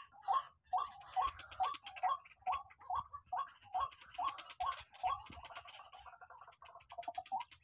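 Barred rail (tikling) calling: a regular series of short, sharp rising notes, about two to three a second, breaking into a quicker, lower chatter near the end.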